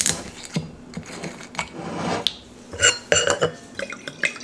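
A glass wine bottle and glassware being handled: scattered knocks and clinks, with a cluster of short ringing clinks about three seconds in.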